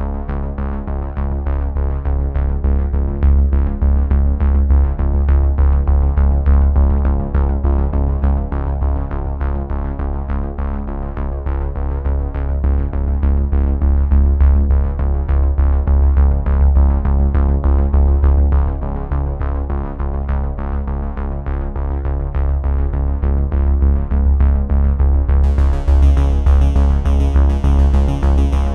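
Background electronic music: sustained synthesizer tones over a deep bass with a quick steady pulse, a brighter high layer joining near the end.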